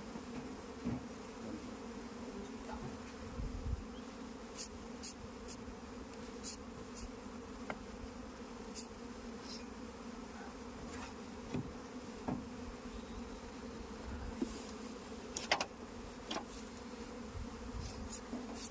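Many honeybees buzzing together in a steady hum, with a few faint clicks scattered through it.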